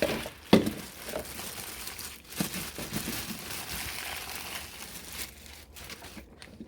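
Plastic packaging crinkling and rustling as it is handled, with a sharp knock about half a second in; the crinkling tails off near the end.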